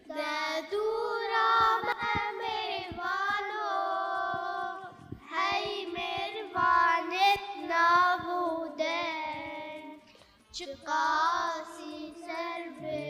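Young girls singing a song in long held, wavering notes, with two short breaks about five and ten seconds in.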